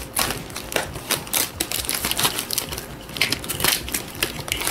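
Scissors cutting through a plastic bag wrapped in lots of tape: a string of irregular sharp snips and clicks.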